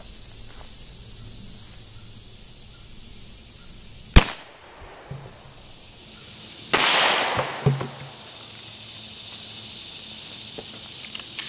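A single shot from a suppressed Glock 17 firing 115-grain 9mm full metal jacket: one sharp crack about four seconds in, over a steady high hum of insects. A second, longer noisy burst comes about two and a half seconds after the shot.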